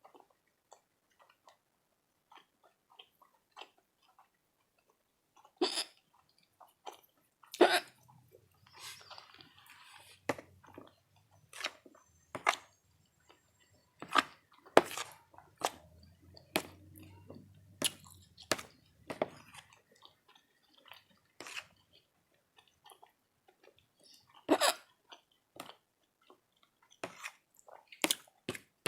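Close-miked chewing of a breakfast of hash browns, sausage and eggs: irregular wet mouth clicks and smacks, a few of them much louder than the rest.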